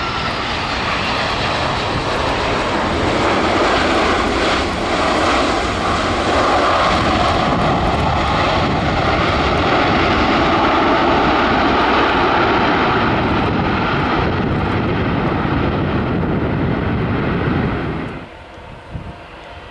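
The four CFM56 turbofan engines of an Airbus A340-300 at take-off power, a loud steady jet roar with a faint whine in it. Near the end the roar drops suddenly to a much quieter background.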